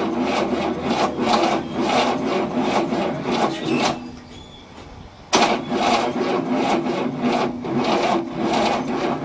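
1967 Cadillac V8 being cranked over by its starter motor, turning slowly in an even rhythm of compression strokes without firing. The cranking stops about 4 seconds in, then starts again a second and a half later. It is not cranking fast enough to start, on a weak battery.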